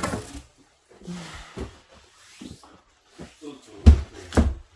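Handling noise from a loose board being stood among stacked panels and boxes: a scrape and knock at the start, then two dull thumps near the end.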